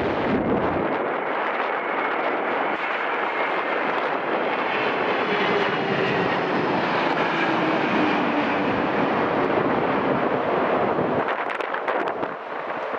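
Landing airliner passing on approach: its engines make a steady rushing noise with a faint whine that slowly falls in pitch as it goes by. Wind rumbles on the microphone for about the first second, and there is a brief dip with crackling near the end.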